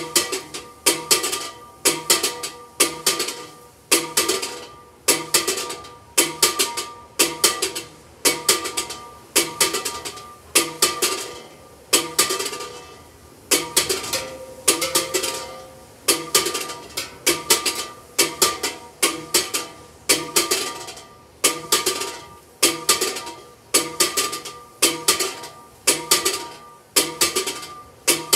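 Large church bell San Pascual swung full-circle in the Spanish volteo style, its clapper striking about once a second, each stroke ringing on over the next.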